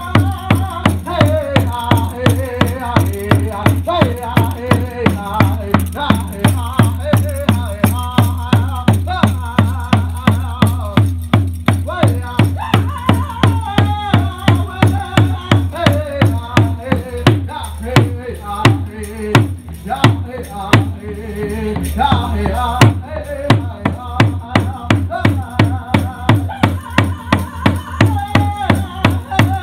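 Hand frame drum struck with a beater in a steady quick beat, about three to four strokes a second, with a man singing over it into a microphone and a stage PA. A little past halfway the beat breaks into a few separate heavy strokes and a short softer stretch, then picks up again.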